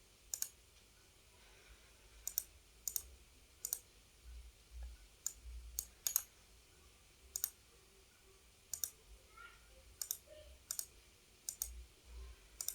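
Computer mouse clicking, single sharp clicks at irregular intervals, roughly one or two a second.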